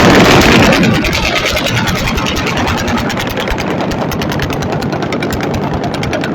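Sustained rapid automatic gunfire, about ten shots a second in one unbroken stream, loudest in the first second and then steady.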